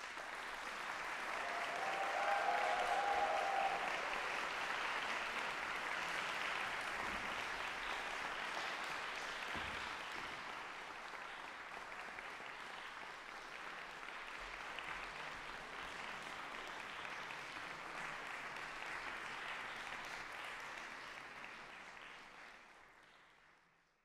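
Audience applauding in a concert hall, starting suddenly and fading out near the end, with a short whoop about two seconds in.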